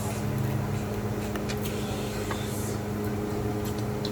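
A steady low mechanical hum from a small motor or appliance, with a few faint clicks and smacks of eating scattered through it.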